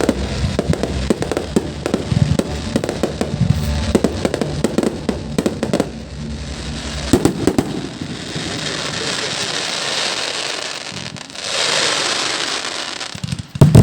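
Fireworks display: a rapid run of bangs and pops for the first half, then a steady hissing crackle, and a loud bang near the end.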